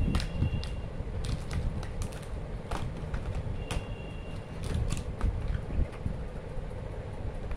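Cardboard gift box, plastic tray and wrapped chocolate bars being handled: scattered light clicks, taps and crinkles, over a steady low rumble.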